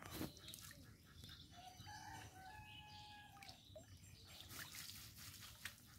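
Faint rooster crowing: one drawn-out call from about one and a half to three and a half seconds in. A soft knock at the very start and a few light clicks near the end.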